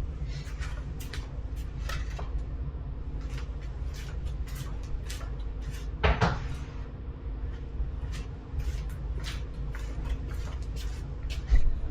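Cut wooden boards being handled and set down: scattered light wooden knocks and clatter, with a louder knock about six seconds in, over a steady low hum.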